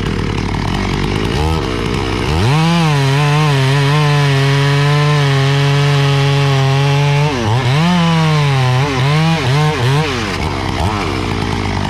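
Stihl MS 250 two-stroke chainsaw cutting into the base of a tree trunk. About two seconds in it goes up to full throttle and holds a steady pitch under load for about five seconds. Then the throttle is let off and opened again several times, the pitch falling and rising, before it settles lower near the end.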